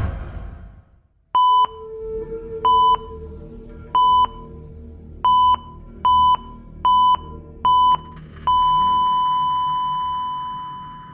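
Heart-monitor sound effect: seven short electronic beeps at one pitch, coming closer together toward the end. They give way to a long unbroken tone that fades slowly, the flatline of a patient monitor.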